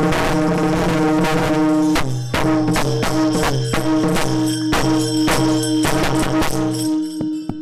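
Kirtan accompaniment with no singing: a harmonium holds chords over steady, regular percussion strokes. About seven seconds in the lower notes drop away, leaving one held note.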